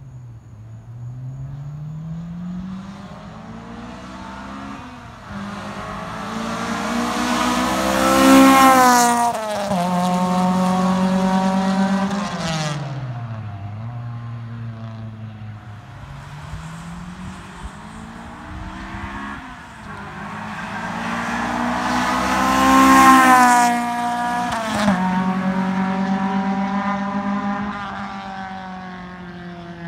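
Acura RSX Type-S with a swapped-in K24A 2.4-litre four-cylinder, running a K-Tuned 4-2-1 header with no catalytic converter, no resonator and a K-Tuned oval muffler, accelerating hard past twice. Each time the exhaust note climbs in pitch with a short dip at a gear change, is loudest as the car goes by, then drops in pitch as it pulls away.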